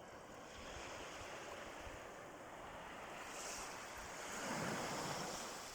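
Sea waves washing onto the beach: a steady rush of surf that swells to its loudest about three-quarters of the way through, then falls away.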